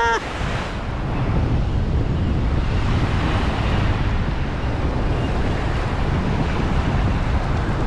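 Wind rushing over the microphone with the steady wash of small breaking surf on a sandy beach.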